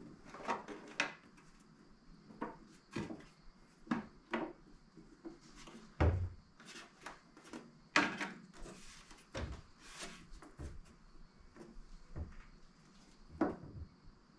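Irregular knocks, clicks and rubbing of an aftermarket air-intake housing being handled and pushed down into place on its grommets in a car's engine bay, with two louder knocks about six and eight seconds in.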